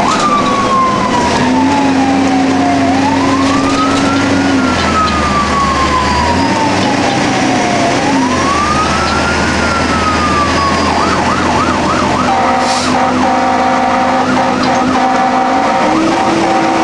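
Fire engine's electronic siren in a slow wail, sliding down and back up about every five seconds, then switching to a fast yelp about eleven seconds in. Long, low steady horn blasts sound under it, and a steady blaring horn tone joins the yelp about a second later.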